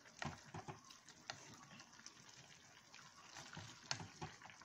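Wooden spatula stirring jaggery into mango gravy in a steel kadai: faint wet stirring with scattered light knocks of the spatula against the pan.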